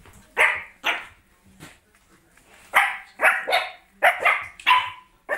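Small dog barking in play: two short, high yaps, then after a pause a quicker run of about seven more.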